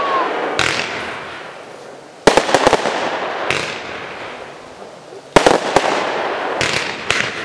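Aerial fireworks shells bursting in sharp reports about two to three seconds apart, three main bangs and a smaller one near the end, each followed by a fading crackle of glittering stars.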